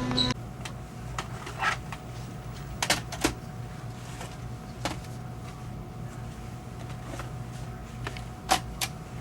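A few separate light clicks and knocks, two close together near the end, over a low steady hum. Music cuts off just after the start.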